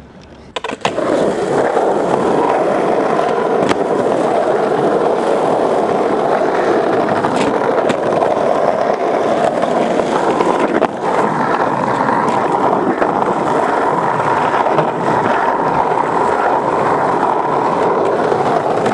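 Skateboard wheels rolling steadily over rough asphalt, with a few brief clicks from the board along the way.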